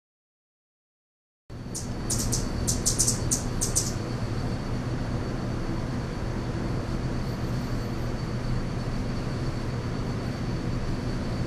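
Silent for about the first second and a half, then a steady low traffic-like rumble with a faint high whine. Over it, a quick run of about eight high, thin chip notes over roughly two seconds, typical of a male Anna's hummingbird calling from its perch.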